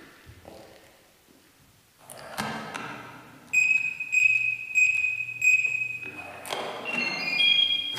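A low hit about two seconds in, then a high electronic beep repeating four times about every two-thirds of a second, followed by a quick run of rising notes leading into music.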